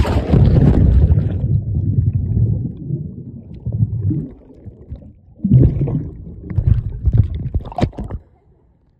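Splash as a phone plunges into a swimming pool, then muffled underwater rumbling and bubbling heard through the submerged phone's microphone, with a few louder surges of churning water before it drops away near the end.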